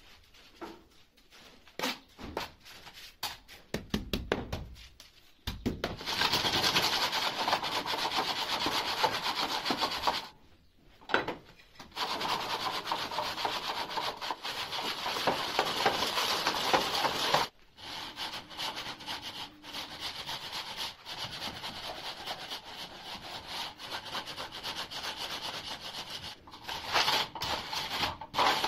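Metal straightedge dragged back and forth over a damp screed mix along wooden guide rails, levelling the mortar bed: a steady gritty scraping and rasping. It starts with a few scattered knocks, breaks off briefly about ten seconds in, eases off later and grows louder again near the end.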